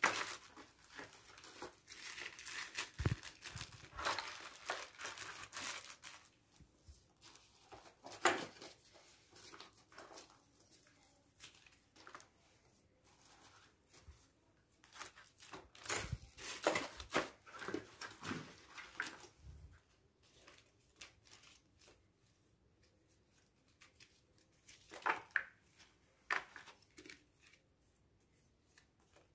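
Paper play money, cards and plastic bags of game pieces rustling and crinkling as they are handled and packed into a game box, in several bursts with quieter gaps between.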